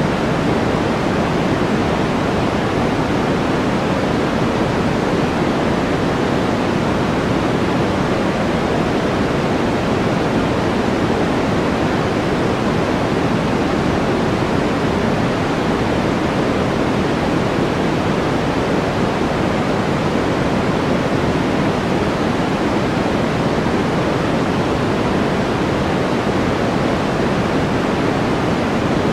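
Steady white-noise study track: an even, unbroken hiss, fuller in the low-middle range than in the highs, with no change throughout.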